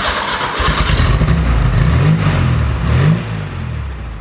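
Porsche 912's freshly rebuilt air-cooled 1.6-litre flat-four, running just after start-up through a Dansk sports exhaust. It is revved twice, rising and falling in pitch, then settles back to a lower idle near the end.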